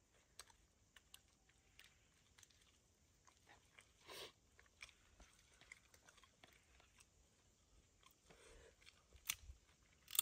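Near silence, broken by faint scattered clicks and crackles. There is a soft rustle about four seconds in and a few sharper clicks near the end.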